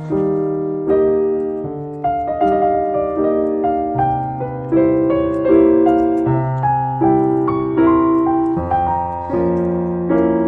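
Background music: a piano plays a gentle melody over changing chords and a bass line, notes struck every half second or so and fading.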